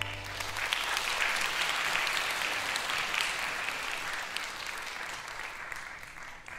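Audience applauding, a dense patter of many hands clapping that thins out near the end. In the first moment the last low note of an Electone electronic organ dies away under it.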